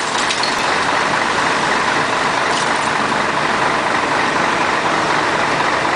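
Heavy construction machine's engine running steadily, a loud even drone with no change in pitch.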